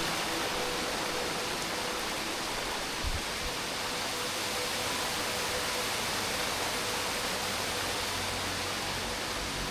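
Steady rushing roar of falling water from Sai Yok Noi Waterfall, with a brief low thump about three seconds in.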